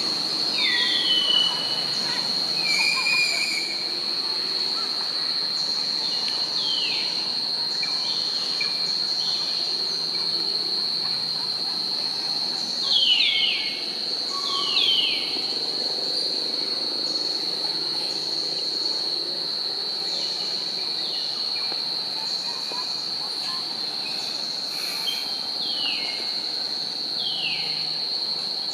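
Insects droning at one steady high pitch, with short, squeaky, falling calls breaking in now and then, often in pairs.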